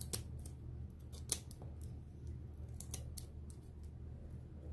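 Scissors snipping excess washi tape off a canning jar rim: several short, separate snips over a low steady hum.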